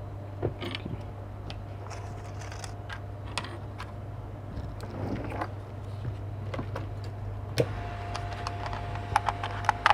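Light clicks and taps of small tools and phone parts being handled during a repair, over a steady low hum. A sharper click comes about three-quarters through, and a faint steady whine joins in after it.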